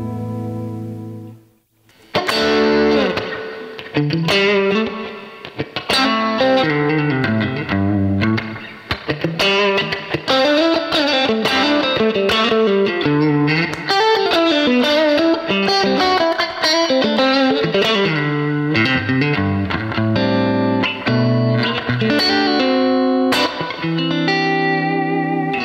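Electric guitar played through a NUX MG-30 multi-effects processor: a held chord dies away, then after a short break a fast lead line of quick runs and picked notes.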